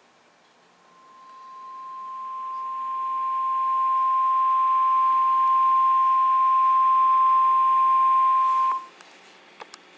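Emergency Alert System attention tone for a tornado warning: a single steady high tone that fades in over about two seconds, holds, and cuts off abruptly about nine seconds in. A few faint clicks follow near the end.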